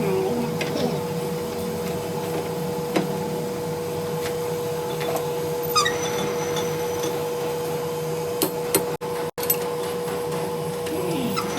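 A workshop machine's electric motor running with a steady hum, with a few light metallic taps and clicks over it. The sound cuts out twice for an instant about nine seconds in.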